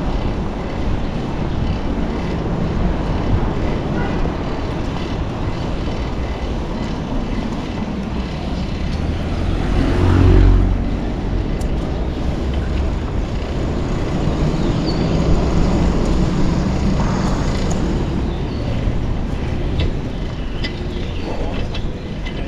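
Street traffic noise, with a vehicle passing close by about ten seconds in.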